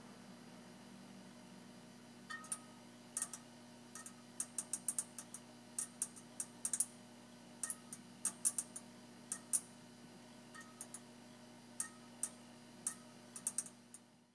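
Vintage Photo-Me black-and-white photobooth mechanism running: a steady motor hum with sharp, irregular clicks, some single and some in quick clusters.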